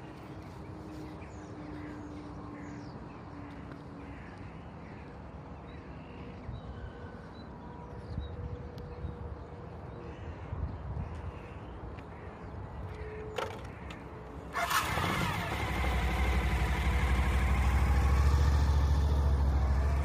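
Adventure-touring motorcycle engine started about three-quarters of the way in, catching at once with a sudden loud burst, then running steadily and growing louder as the bike pulls away. Before it, only a low, quiet outdoor background with a sharp click just ahead of the start.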